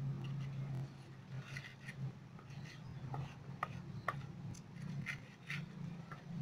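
Pestle knocking and scraping chopped shallots against a terracotta mortar (cobek) as they are ground: irregular light clicks and gritty scrapes. A low hum is loudest in the first second.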